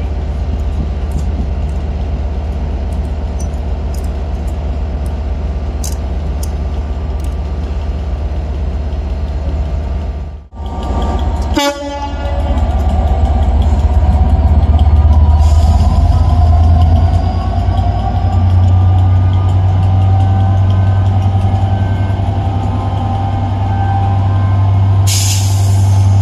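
Train running with a deep, steady engine drone. The sound drops out briefly about ten seconds in and then comes back louder, with a short hiss near the end.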